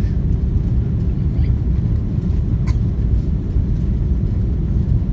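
Airliner cabin noise on approach to landing: a steady low rumble of the engines and rushing air, heard inside the cabin.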